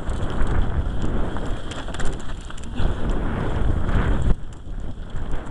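Wind buffeting a camera microphone on a Giant Glory downhill mountain bike at speed, over a constant rattle and knocking of the bike and its tyres on rough dirt. The rush eases a little after four seconds in.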